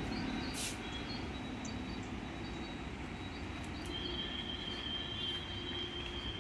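Steady background noise of a tailoring workshop, with a short click about half a second in and a faint high, steady tone for about two seconds near the end.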